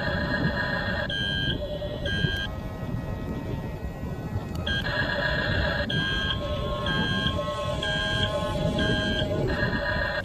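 Electronic beeping from a toy RC construction vehicle's sound module, pulsing about once a second in the second half, like reversing beeps, over a steady rattling noise.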